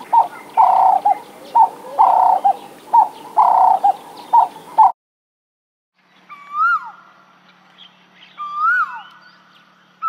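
Red collared dove cooing in rough, pulsing phrases about once a second, then an Asian koel calling twice, each a loud whistled note that rises and then drops sharply, about two seconds apart.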